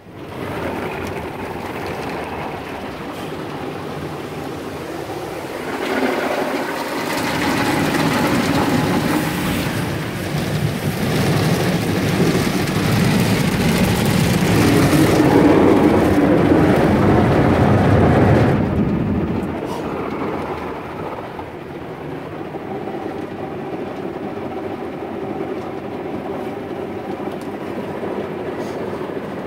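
Ryko SoftGloss Maxx 5 rollover car wash working over the car, heard from inside the cabin: a steady rush of water spray and wash machinery on the body. It starts suddenly, swells louder from about six seconds in until near eighteen seconds, then drops back to a steadier, lower rush.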